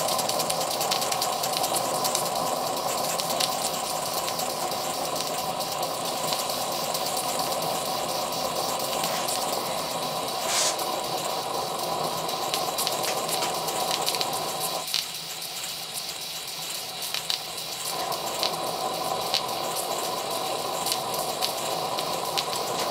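Steady hissing rush of steam venting from a small homemade boiler's pop-off valve, set at 10 psi and blowing because the boiler has reached that pressure, along with its burner. The rush dips for about three seconds past the middle, and there are fine ticks throughout.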